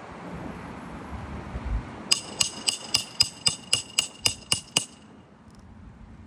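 A hammer striking metal about eleven times in quick, even succession, roughly four blows a second, each with a bright metallic ring, then stopping. Wind rumbles on the microphone before the blows.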